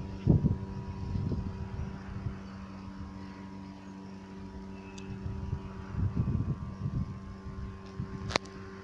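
Strong wind gusting against the microphone in low rumbles, over a steady machine hum of several even tones like a motor or engine running. A sharp click sounds near the end.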